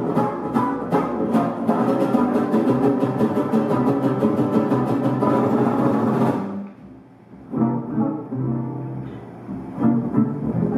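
Live small-band jazz: strummed acoustic guitar, upright bass and the rest of the band playing together until about six seconds in, when the full sound suddenly drops away. After a brief lull, quieter guitar and bass playing picks up again.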